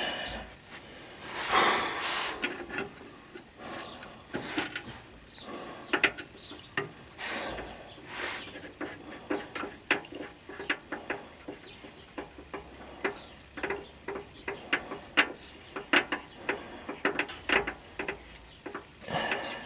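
Ratchet wrench clicking in short, uneven runs as bolts are run in, mixed with metal tool clinks and the rustle of handling.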